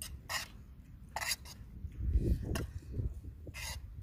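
A fork scraping and stirring noodles in a bowl: three short scrapes, one near the start, one about a second in and one near the end. A low rumble sits about halfway through.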